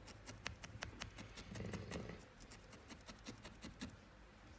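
Spiral felting needle stabbing repeatedly through wool into a felting pad: a quick run of faint clicks, about five a second, that thins out near the end.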